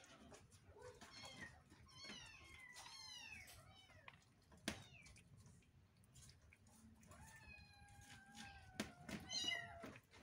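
Domestic cat meowing faintly: a few short falling calls about two to three seconds in and one long, drawn-out call near the end, with faint clicks of a cat eating from a plastic bowl in between.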